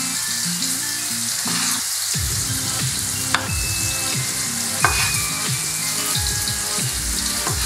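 Chopped carrot and red pepper sautéing in olive oil in a frying pan, a steady sizzle, with two sharp knocks of a kitchen knife on a bamboo cutting board about a second and a half apart as artichoke hearts are cut in half.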